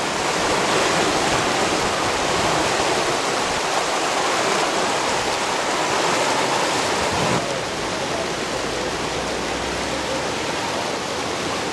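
Muddy river in flood, rushing and churning in a steady roar of water. It turns a little quieter and duller about seven seconds in.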